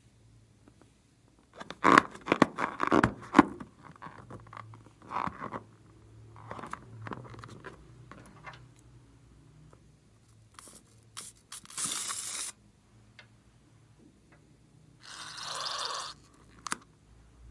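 Slime being squeezed, pressed and stretched by hand: irregular bursts of crackling and sticky popping, the loudest cluster about two seconds in, with two short hissing bursts later on.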